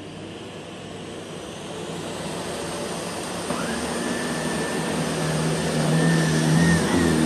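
Sebo Professional D9 cylinder vacuum cleaner switched on, its motor running and growing steadily louder as it spins up, with a high whine joining in about halfway through.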